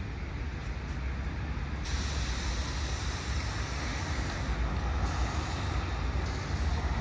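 A vehicle's steady low rumble, growing slightly louder.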